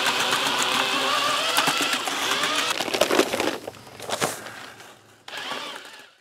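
Cordless drill spinning a paddle mixer through thinset mortar in a plastic bucket, a steady motor whine with wavering pitch. It stops about three and a half seconds in, followed by a few knocks and a short burst of noise near the end.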